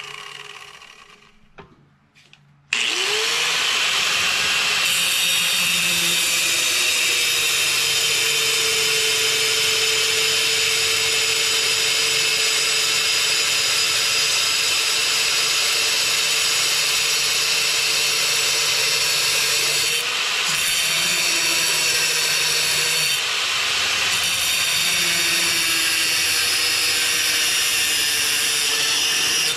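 Angle grinder with a cutting wheel starting up about three seconds in, its whine rising as it spins up, then cutting steadily through a lawn mower blade held in a vise. The pitch dips briefly twice near the end.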